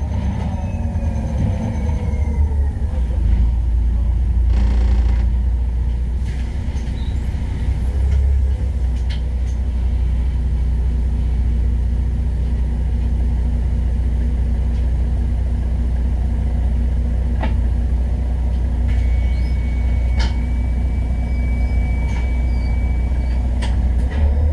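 City bus slowing to a stop, its drivetrain whine falling in pitch over the first few seconds, then its engine idling with a steady low hum while it stands at the stop. A short hiss comes about five seconds in, and a few faint clicks follow.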